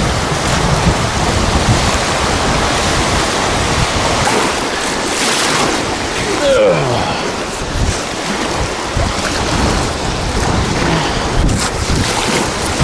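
Strong gusty wind buffeting the microphone over choppy waves washing against the shore.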